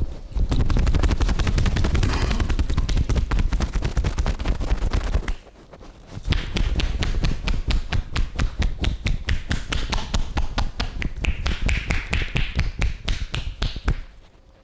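Fast percussive hand massage: hands chopping and slapping on the body in a quick, even rhythm of sharp strikes. The strikes break off briefly about five seconds in, then start again and go on until just before the end.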